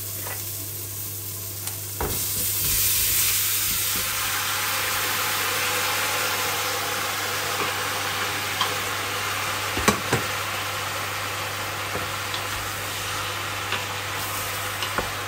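Onions frying in hot oil in a pot, sizzling. About two seconds in there is a knock and the sizzle jumps louder as chopped fresh tomatoes are tipped into the hot pot, then it carries on as a steady sizzle, with a few knocks of the wooden spoon and pot. A low steady hum runs underneath.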